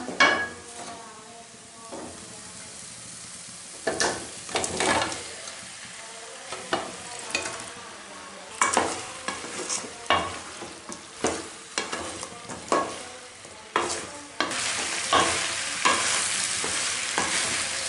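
A spatula stirring boiled country-chicken pieces into frying onion-chilli masala in a steel pan, with irregular scrapes and knocks against the pan. Near the end a steady sizzle of frying comes up under the stirring.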